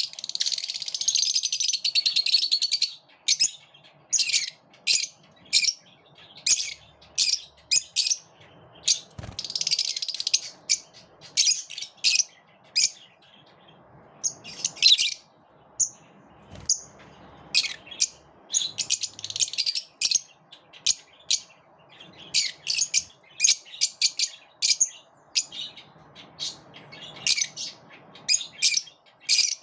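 Lovebirds chirping: a steady run of short, sharp, high-pitched chirps, broken now and then by longer stretches of rapid chatter.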